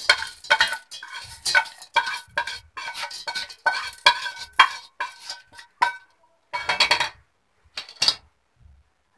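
Roasted chana dal and coconut pieces tipped and scraped from a steel pan into a stainless-steel mixer-grinder jar: a quick run of metallic scrapes and clinks with a ringing tone for about six seconds, then two louder knocks about seven and eight seconds in.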